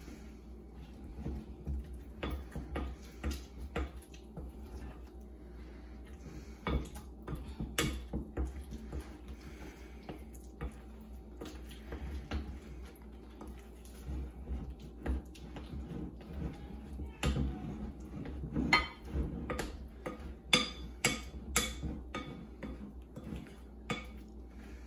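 A hand-held utensil clicking, knocking and scraping against a glass mixing bowl as butter, icing sugar and milk are creamed together by hand for buttercream. The clicks come irregularly and grow denser and louder past the middle.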